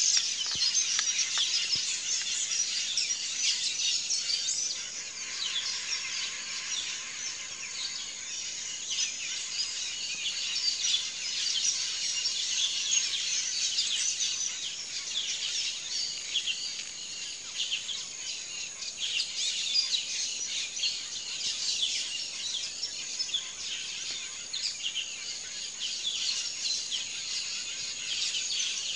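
Forest ambience: a dense, continuous, high-pitched chorus of insects made of many rapid pulses, with bird calls mixed in.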